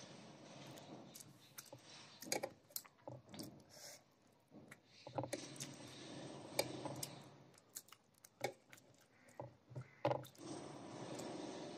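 Close-up eating sounds: chewing and wet mouth noises with scattered sharp lip-smacks and clicks, and soft squishing of fingers mixing rice with curry on a plate.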